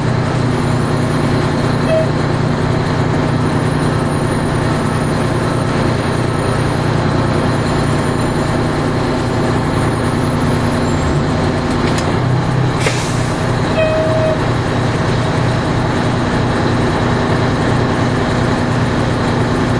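Fire engine's diesel engine idling steadily, a low even drone, with a short beep about two seconds in and a longer one near fourteen seconds.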